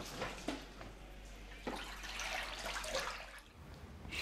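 Water sloshing and splashing in a darkroom processing tray as hands slide a photographic print around in it, coming in uneven swells.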